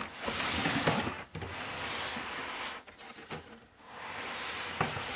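Packaging being handled during unboxing: cardboard and wrapping rustling and scraping in three stretches, with a couple of sharp clicks.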